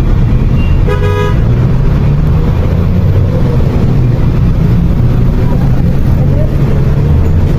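City street traffic: vehicle engines giving a steady low rumble, with one short car horn toot about a second in.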